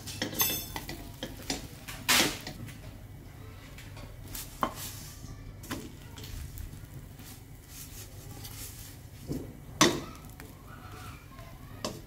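Spatula scraping and knocking against a stainless-steel wok as thin crepes are turned and pressed, with a faint sizzle of frying underneath. There are several separate scrapes, the sharpest about two seconds in and again near the end.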